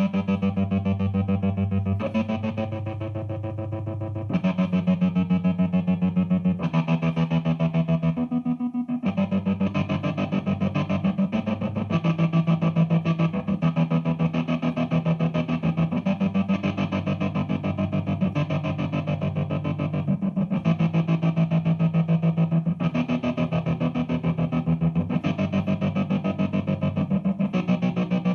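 Electric guitar played through a DigiTech GNX3 multi-effects processor set to a synth-like effect. It sounds sustained chords that change every couple of seconds, with a fast, even pulse running through the sound.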